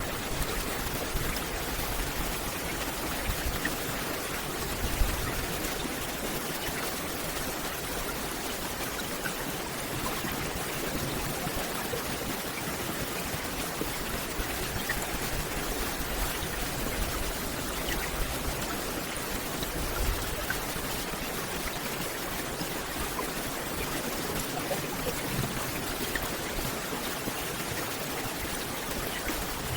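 Steady rain falling on a forest canopy: an even hiss with scattered faint drop ticks and a couple of brief low thuds, about five seconds in and again near twenty seconds.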